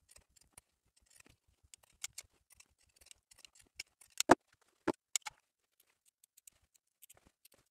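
Pinking shears and small scissors snipping through fabric in scattered, irregular cuts, the loudest a little after four seconds in.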